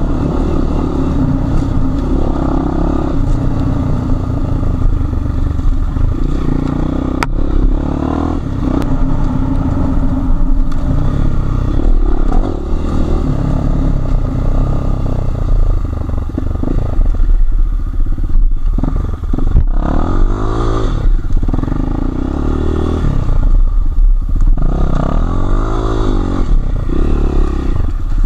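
Enduro motorcycle engine running under load while riding off-road, the revs rising and falling repeatedly, most plainly in the second half.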